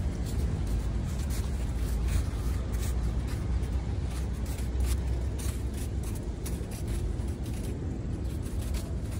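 Steady low rumble of street traffic, with footsteps crunching in packed snow as short, irregular crackles.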